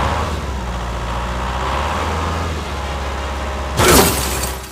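Truck engine running steadily with a low rumble, then a sudden loud noisy burst near the end.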